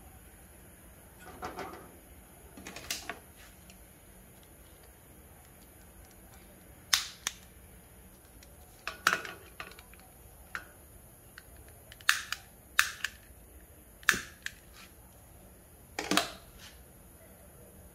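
A long-nosed utility lighter's trigger clicking again and again: about ten sharp snaps in uneven groups of one to three as it is fired at the burner of a pressurized kerosene stove, until the burner catches near the end. Softer handling rustles come in the first few seconds.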